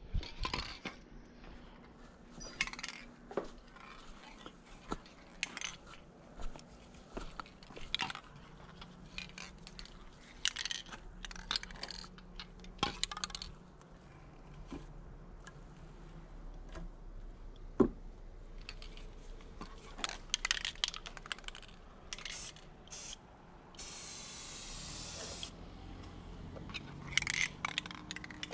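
Knocks, clinks and scrapes of things being rummaged through and moved about, then an aerosol spray-paint can hissing in one burst of about a second and a half near the end.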